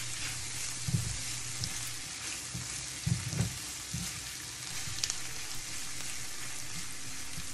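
Fried onions sizzling in hot oil in a cooking pot as spices go in and are stirred, with a few dull knocks of the spoon about a second in and around three seconds in.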